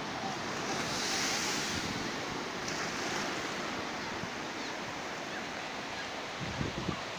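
Surf breaking and washing up a sandy beach, a steady hiss of waves that swells about a second in. Wind buffets the microphone near the end.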